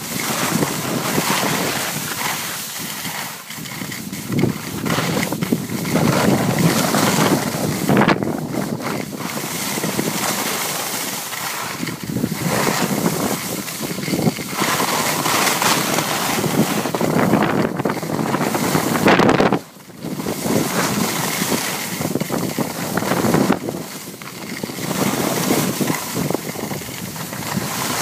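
Wind buffeting the microphone of a moving skier, mixed with skis hissing and scraping over packed snow; the noise swells and falls unevenly and drops away briefly about twenty seconds in.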